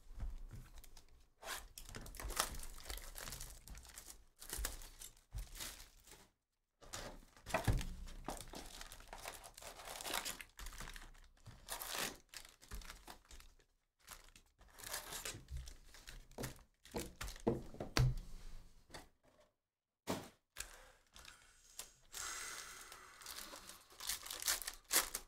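Sealed packs of Bowman Draft Jumbo baseball cards being torn open by hand: a run of ripping and crinkling of the pack wrappers in separate bursts, with a few knocks as packs and cards are handled.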